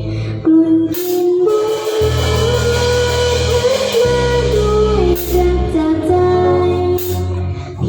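A band playing a song with a woman singing over steady bass notes.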